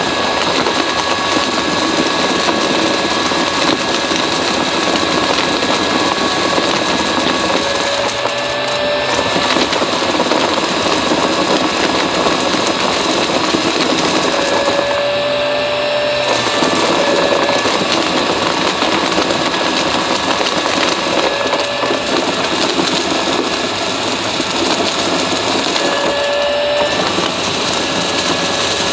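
Upright vacuum cleaner running steadily, its motor whine under a dense crackle of crunchy debris being sucked up through the brushroll. The pitch shifts briefly four times, about every six seconds.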